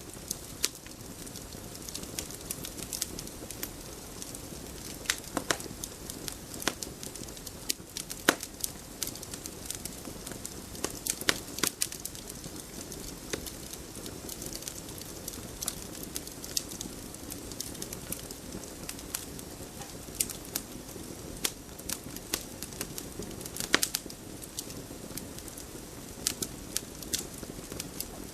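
Wood fire burning with a steady hiss and irregular sharp crackles and pops, a few louder snaps among them.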